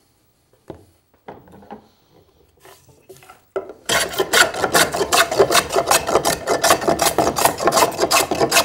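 A few light knocks, then about four seconds in a Lie-Nielsen No. 40½ scrub plane starts taking a fast run of short, heavy cuts across a board, several rasping strokes a second, each throwing a thick shaving.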